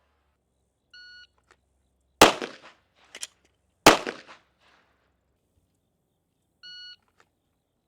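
Electronic shot timer's start beep, then two pistol shots about a second and a half apart, each followed by a fainter crack, and a second timer beep near the end.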